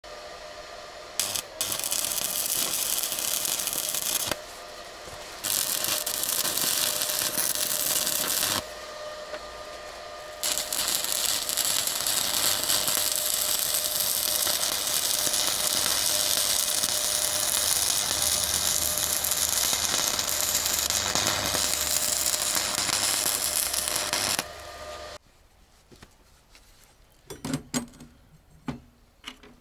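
A power tool running in the workshop, loud in three stretches with quieter running between them, and switched off about 25 seconds in. A few short knocks follow near the end.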